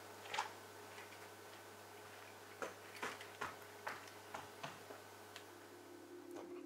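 Faint sharp ticks over a steady low hum: a few scattered at first, then a run of about two a second in the middle. A low ringing tone fades in near the end.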